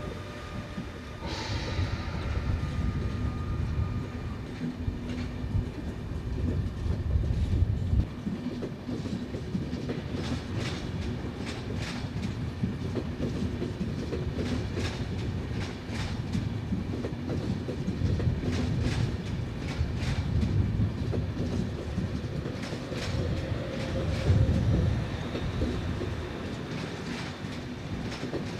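An ÖBB Railjet train rolls past with a steady low rumble. At first there is a thin steady whine from its electric locomotive that fades within a few seconds. Then the coaches go by with a long run of sharp wheel clicks over the track.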